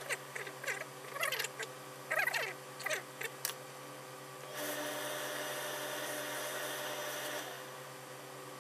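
Suit-trouser fabric rustling and rubbing as it is smoothed and folded flat by hand on a worktable, with a few sharp rustles and clicks in the first three seconds. About halfway a steady hiss runs for roughly three seconds, all over a low steady hum.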